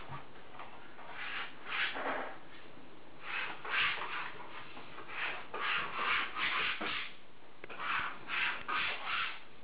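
Wallpaper being rubbed and smoothed onto a wall: a run of short swishing strokes that come in quick clusters of three or four.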